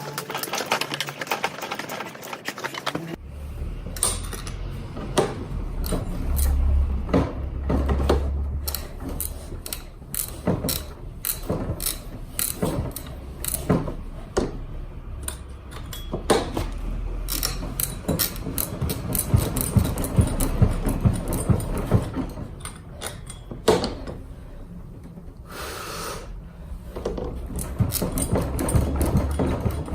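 Hand tools and metal parts clicking and clanking in quick, irregular succession during work on a scooter's rear wheel, over a low rumble.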